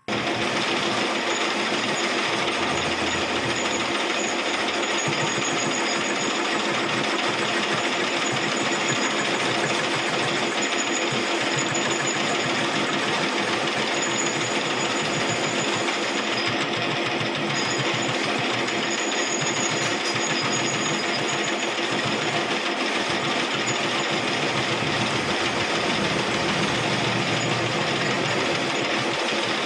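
Arc welding: a steady, loud crackling hiss as weld is built up on the loose-fitting, worn portion of a truck water pump part.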